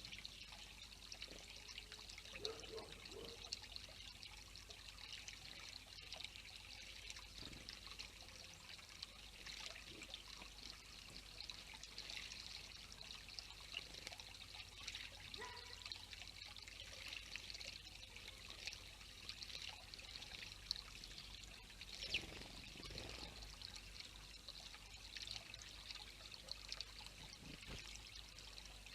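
Faint, steady trickle of running water, with a few soft, brief sounds lower down.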